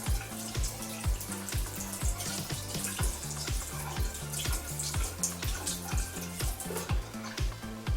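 Background music with a steady beat of about two thumps a second and a stepping bass line, over the hiss of running tap water as a makeup brush is washed.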